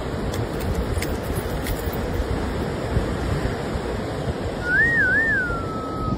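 Steady rush of surf breaking on a beach, with wind on the microphone. Near the end comes a short whistle that warbles twice and then glides down in pitch.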